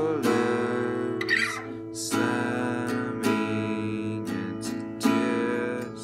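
Acoustic guitar strummed, one chord shape shifted between frets along the neck, a strum about every second with each chord left to ring.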